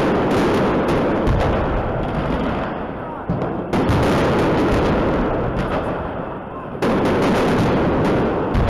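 Aerial firework shells bursting overhead: a sharp boom every few seconds, several in all, each followed by dense crackling that fades off.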